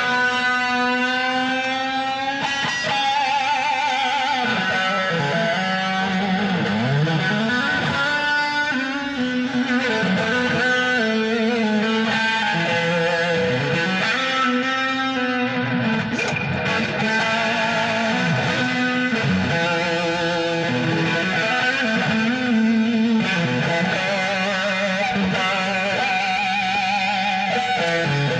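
Electric guitar played through effects, holding sustained lead notes with vibrato and sliding pitch bends over a lower moving line, to demonstrate the tone.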